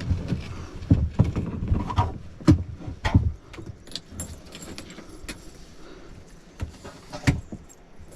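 Handling clatter from fishing gear: a quick run of knocks and jangling rattles in the first few seconds, then a few lighter clicks and one sharp knock near the end.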